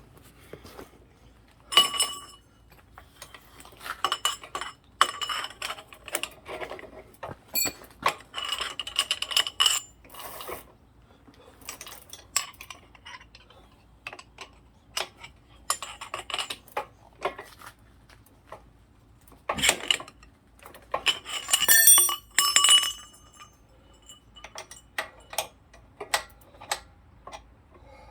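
Metal hand tools clinking and clanking against each other and the bicycle's pedal and crank, in irregular bursts of knocks with short metallic rings.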